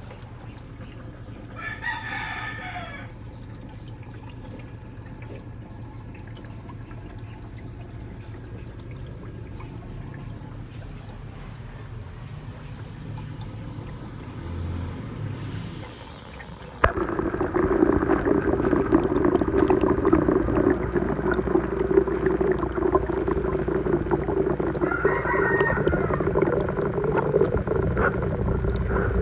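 Water running in an aquarium: a low trickle that suddenly turns much louder and splashier about seventeen seconds in. A short animal call sounds about two seconds in, and a fainter one near the end.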